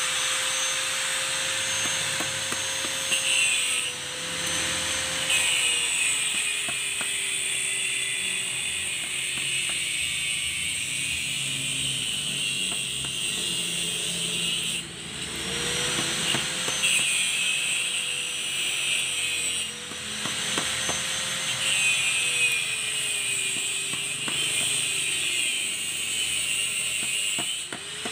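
Cutting pliers snipping and tearing the copper windings out of a water-pump motor's stator, with faint scattered clicks. Underneath runs a steady mechanical whirr with a faint whine that slowly wavers up and down.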